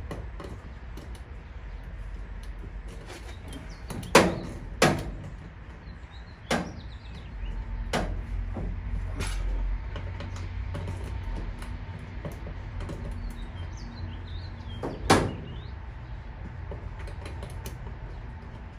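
Hand tools knocking and clanking against bolts and the metal of an old pickup's cab while hardware is tightened by hand: a few scattered sharp knocks, the loudest about four seconds in and again near fifteen seconds, over a low steady rumble.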